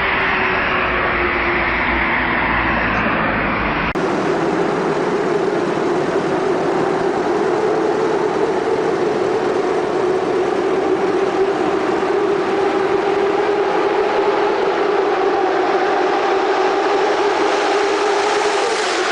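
Motorcycle engines running at high revs: one clip cuts to another about four seconds in, followed by a long, steady engine note that wavers slightly in pitch.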